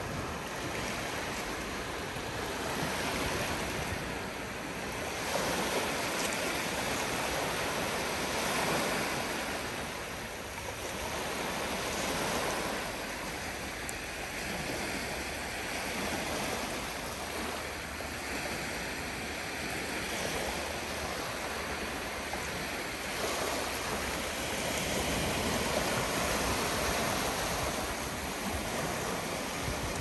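Calm sea surf: small waves breaking and washing up the shore in a steady rush that swells and eases every few seconds.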